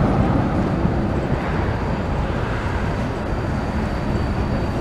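Steady street-traffic rumble as a Siemens ULF low-floor tram rolls in toward the stop. A faint, steady high whine joins about three seconds in.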